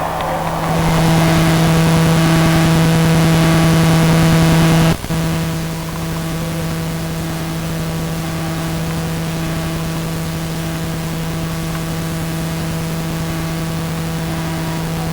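Steady buzzing hum over hiss, which dips and cuts out briefly about five seconds in.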